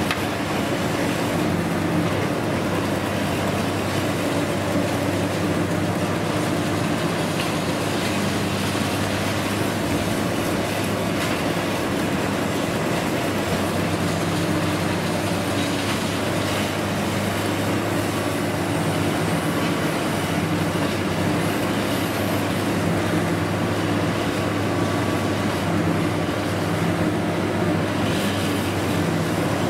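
Diesel engine of a long-reach demolition excavator running steadily under load, a low drone whose note steps up and down now and then, with faint crunching and clatter of concrete and rubble being broken.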